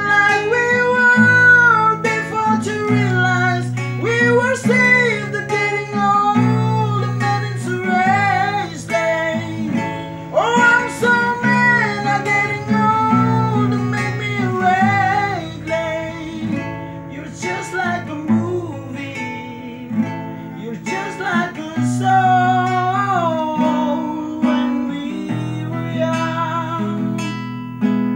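A solo singer with acoustic guitar accompaniment: a voice holding long, wavering notes with vibrato over strummed guitar chords.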